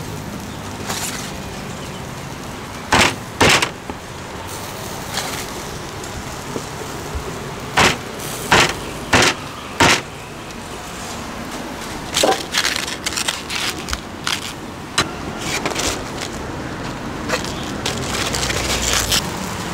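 Cleaver chopping grilled chicken on a thick wooden chopping block: sharp chops in clusters, a pair early, four in quick succession midway, then scattered lighter ones, over steady traffic noise. Near the end comes crinkling as a banana leaf is pressed over a foam food box.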